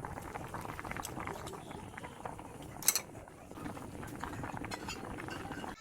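Kitchen cooking noise: a steady, dense clatter of food and utensils, with one sharp clink of metal or dishware about three seconds in.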